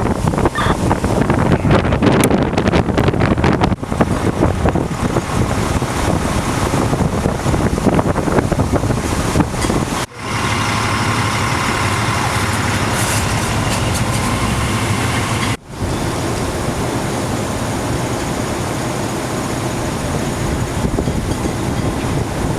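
Loud, steady rumbling of a running vehicle mixed with storm wind on the microphone, broken by two abrupt cuts about ten and fifteen and a half seconds in.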